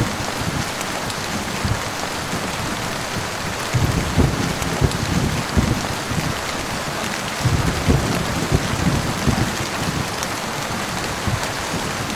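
Heavy rain falling steadily, with low rolls of thunder rumbling up about four seconds in and again about eight seconds in.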